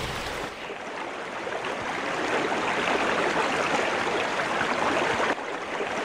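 Steady, even hiss of water, like rain or running water, with a brief dip about five and a half seconds in.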